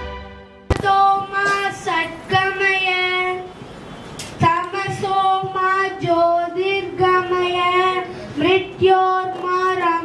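A boy singing a Sanskrit prayer solo into a handheld microphone: a melodic chant of held notes, starting a little under a second in, with a short pause for breath near the middle.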